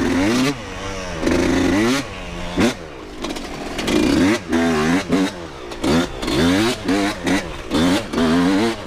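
Dirt bike engine being ridden hard, revving up and dropping back over and over as the throttle is opened and closed.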